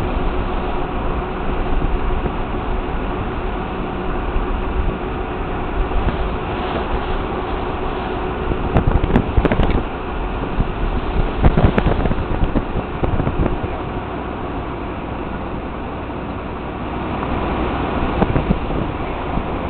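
Steady road and engine noise of a car driving slowly through traffic, heard from the moving car, with a few sharp knocks and louder bursts near the middle.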